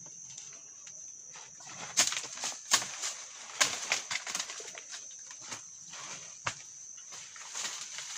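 Leaves and vines rustling, crackling and snapping in irregular bursts as climbing patastillo vines are pulled down out of the brush. The sharpest cracks come in a cluster about two to four seconds in. A steady high insect drone runs underneath.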